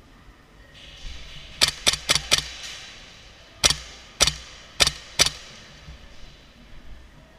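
Airsoft rifle shots: eight sharp cracks, a quick string of four about a second and a half in, then four more fired about half a second apart.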